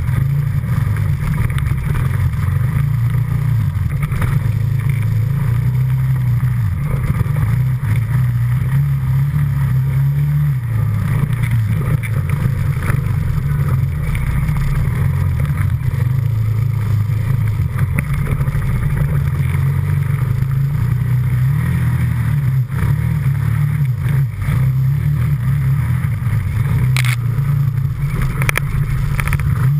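ATV engine running under load on a muddy, snowy trail, its engine speed rising and falling as it pulls through the terrain. A couple of sharp knocks sound near the end.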